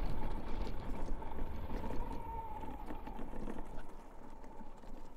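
Electric hub motor of an Ubco 2x2 e-bike whining at one steady pitch under a low rumble of tyres on a rocky gravel road, with scattered small clicks and rattles from the stones. It all fades toward the end.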